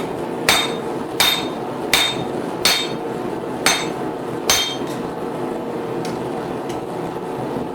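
Six hammer blows on a chisel, cutting the split line into a hot 10 mm bar for a fork's tines. Each blow is a sharp metallic strike with a short ring, and they come about two every three seconds. A few faint taps follow.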